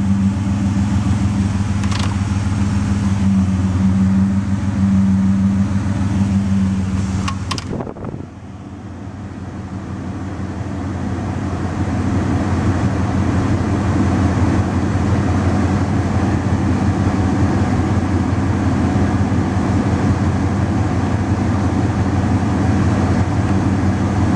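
Ford Escape's 3.0 L V6 idling: the rough idle the owner is trying to cure. About seven seconds in there is a click, the sound drops and changes character, then it builds back to a steady idle.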